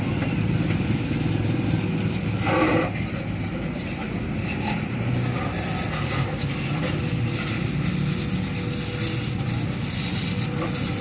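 Pressure washer spraying water on the underside of a car: a steady rush of spray over a low, constant machine hum. A brief louder sound rises above it about two and a half seconds in.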